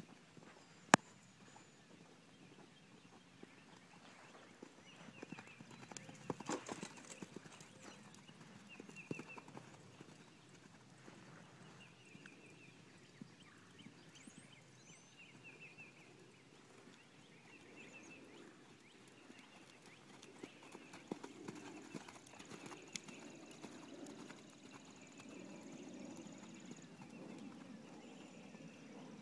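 Faint horse hoofbeats on soft sand arena footing, with a horse moving at a canter, and a sharp click about a second in.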